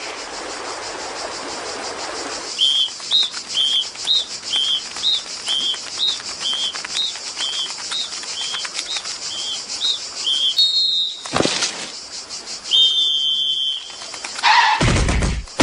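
Short whistled chirps repeated about twice a second, alternating between two pitches, over a steady high hiss; a held whistle and a couple of whooshes follow near the end.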